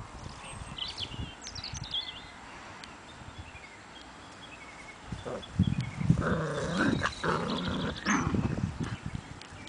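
Old English Sheepdog puppies vocalizing as they play-wrestle, the noises coming in a louder run over the last few seconds.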